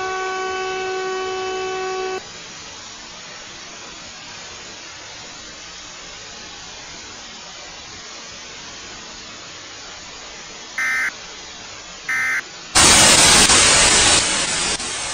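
Synthesized Emergency Alert System signalling: a steady buzzing alert tone that stops about two seconds in, leaving a low steady hiss. Near the end come two short, high digital data bursts about a second and a half apart, the kind of end-of-message code that closes an EAS alert. They are followed by a loud burst of static that cuts off suddenly.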